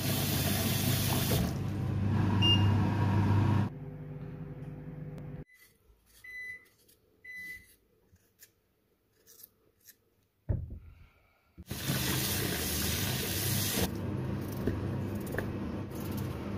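Tap water running hard into a stainless steel pot, then a near-silent stretch with a few faint short scrapes of a knife peeling a potato, then water running again as peeled potato slices are washed in a bowl.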